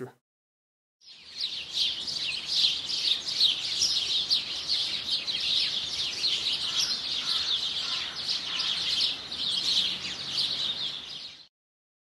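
Dense chorus of songbirds, many quick overlapping chirps and song phrases. It starts about a second in and is cut off abruptly near the end.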